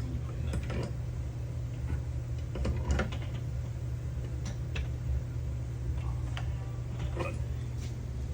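Scattered short metallic clicks and taps of hand tools and parts as the check-valve cover is tightened down on a backflow preventer assembly, over a steady low hum.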